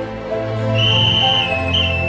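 Background music with a high, whistle-like melody line of long held notes over a low accompaniment; the melody note steps down slightly and back up near the end.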